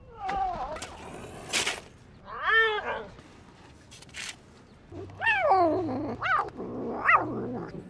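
A hungry stray cat meowing repeatedly, about five drawn-out calls that rise and fall in pitch, with two short hissing bursts in between.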